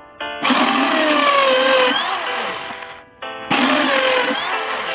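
Corded electric drill boring into a wooden block in two runs, the first about two and a half seconds long and the second shorter. Its motor whine drops in pitch as the bit bites into the wood.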